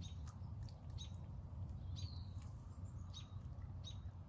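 Bird chirps: a series of short, high, downward-sweeping calls, about two a second, over a faint low background rumble.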